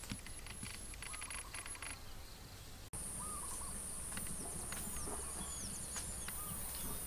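Rural outdoor ambience of birds calling and insects. About three seconds in, a steady high insect drone comes in, with short, repeated falling bird calls over it.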